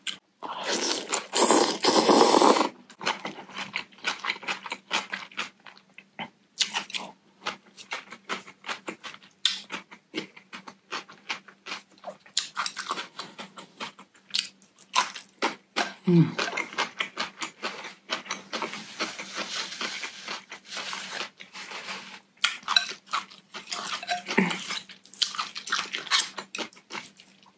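Close-miked eating sounds of cold noodles: a long, loud slurp of noodles about a second in, then steady chewing and crunching of crisp cucumber and pickled yellow radish, with many small wet clicks and smacks.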